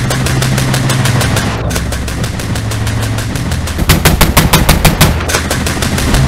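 BTR-82A's turret-mounted 30 mm autocannon firing in rapid automatic fire, several shots a second. The shots are loudest about four seconds in, over a steady low hum.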